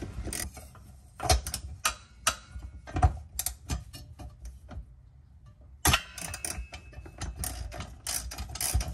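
Hand ratchet with a 10 mm deep socket clicking as it loosens a bolt on an underbody shield: scattered clicks, a short pause, then a quick run of clicks from about six seconds in.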